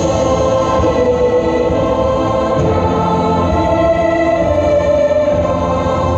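Background music with sustained choir-like voices.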